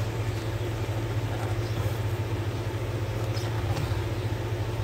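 Steady low hum of a small homemade air compressor built from a refrigerator compressor motor, running.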